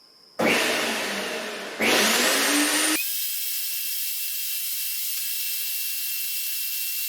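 Earthwise GS70015 electric wood chipper switched on: its motor spins up with a rising whine about half a second in, then runs at speed with a steady high whine and hiss.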